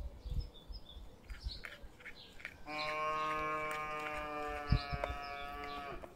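A cow mooing once: one long, even-pitched call of about three seconds, starting about two and a half seconds in. Small birds chirp around it.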